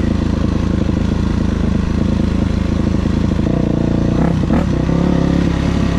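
2000 Yamaha YZ426F's four-stroke single-cylinder engine running steadily, its note changing about three and a half seconds in, with a brief clatter about a second later.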